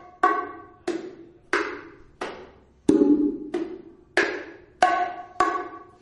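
Conga drum struck by hand in a steady son rhythm: about nine evenly spaced strokes, one every two-thirds of a second or so, most of them open tones that ring briefly.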